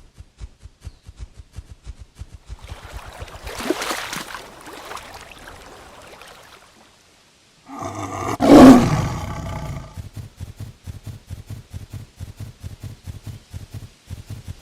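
Hippopotamus calling: rapid low grunting pulses, about five a second, broken by two louder bellowing roars about three and a half and eight and a half seconds in. The second roar is the louder.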